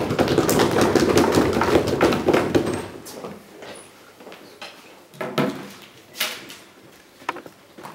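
A small audience applauding for about three seconds, then dying away into scattered knocks and shuffling as the next speaker comes to the front.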